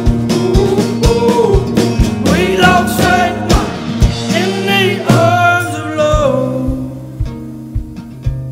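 Live band music: wordless sung vocals over acoustic guitar, cello and a drum kit keeping a steady beat of about two hits a second. After about six seconds the singing stops and the music drops in level, the guitar carrying on with lighter drum hits.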